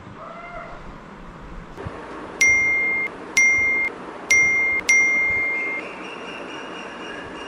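Mobile phone notification beeps: four identical electronic tones, the last held a little longer, over a steady background hiss.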